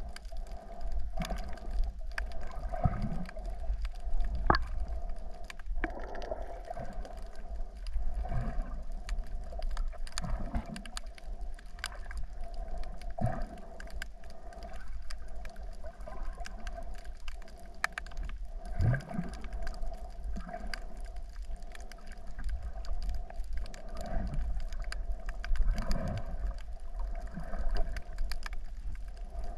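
Muffled underwater sound picked up by a submerged camera: a steady low rumble and hum with scattered sharp clicks and crackles, and every few seconds a short low gurgling swoosh of moving water.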